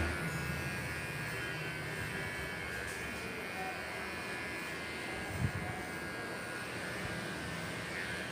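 Electric pet hair clipper running steadily with a buzzing hum as it shears fur from a Labrador's tail, with one brief knock about five seconds in.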